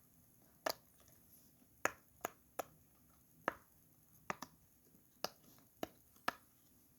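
Bubbles of a silicone pop-it fidget toy being pressed: about ten short, sharp pops at uneven intervals, half a second to a second apart.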